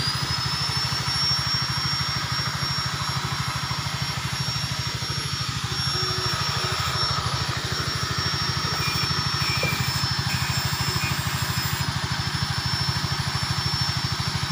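A motor running steadily: a low, rapidly pulsing drone with a thin high whine over it. The whine rises in pitch at the very start and then holds.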